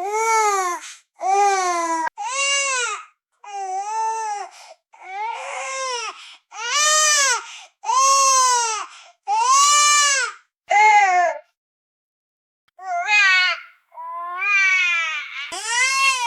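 Baby crying softly in a string of short wailing cries, each rising and then falling in pitch, about a dozen in all with brief breaths between them and a longer pause of about a second two-thirds of the way through.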